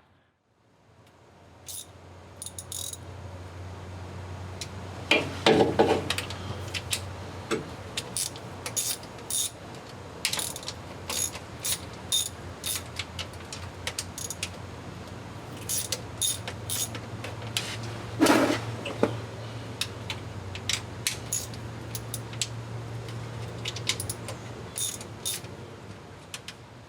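Socket ratchet clicking in repeated runs as the 13 mm bolts of a transmission oil pan are backed out. Two louder rasping sounds come about five and eighteen seconds in.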